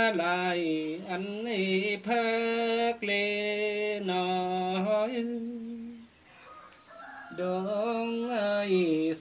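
Nùng antiphonal folk singing (hát đối đáp): one voice holding long, drawn-out notes that slide between pitches, in phrases of about a second each, with a short pause about six seconds in before the song picks up again.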